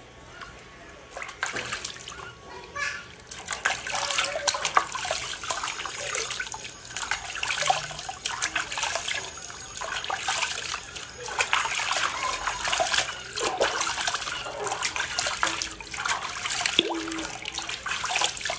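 Water splashing and sloshing in a basin as a baby monkey is washed by hand, with water running into the basin from a tap. It is quieter for the first two or three seconds, then busy with irregular splashes.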